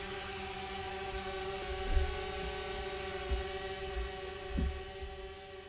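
Small quadcopter drone hovering just after takeoff, its propellers giving a steady buzzing hum at one pitch. There are a few low thumps about two, three and four and a half seconds in, and the hum grows fainter near the end.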